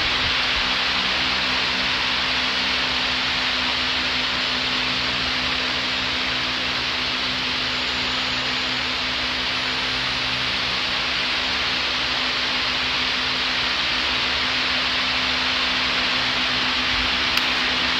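Large wall-mounted fan running: a steady, even rush of air with a low hum underneath.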